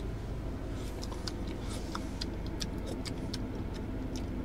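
Steady low hum inside a vehicle cabin, with scattered small clicks and taps of eating: a steel spoon on steel plates and mouth sounds while tasting curry.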